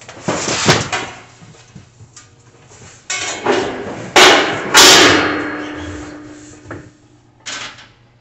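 Grill parts being handled and knocked about, with scraping and clattering knocks. The loudest bang, about five seconds in, leaves a ringing tone that fades over nearly two seconds, and a final knock comes near the end.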